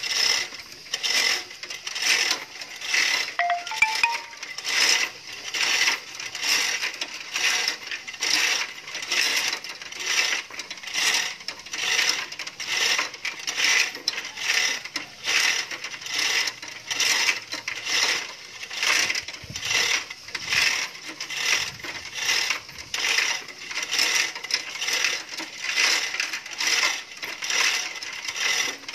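Hand-pulled chain hoist lifting a car engine: its chain clinks through the block in a steady rhythm of sharp metallic clicks, a little more than one a second.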